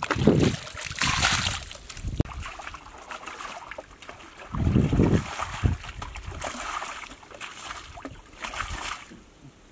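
Water splashing in several bursts as a plastic basin scoops and throws out muddy water, bailing a shallow pool. A low, dull sound about five seconds in.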